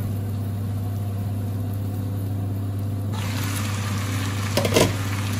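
Chicken pieces cooking in spice paste in a covered pan: a quiet sizzle under a steady low hum. About three seconds in the sizzle turns brighter, and a brief clatter comes near the end.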